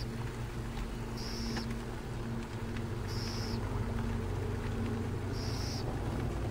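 Western burrowing owl chick giving short raspy begging calls, one about every two seconds, over a steady low drone.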